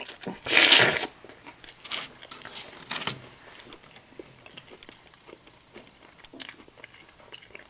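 A person bites into pizza with a loud crunch close to the microphone, then keeps chewing with smaller crunches and mouth clicks that fade away.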